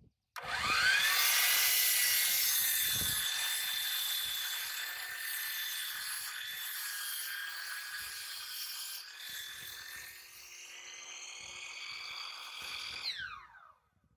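Hercules 12-inch sliding compound miter saw starting up with a quickly rising whine, then its blade cutting down into a 6x6 wooden timber for about twelve seconds. Near the end the motor winds down with a falling whine and stops.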